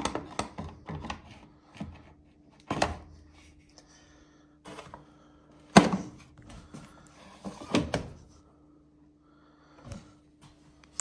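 Plastic detergent dispenser drawer of an LG front-load washer being handled and slid, giving a series of clacks and thunks. The loudest comes about six seconds in, as the drawer is pushed shut. A faint low steady hum runs underneath.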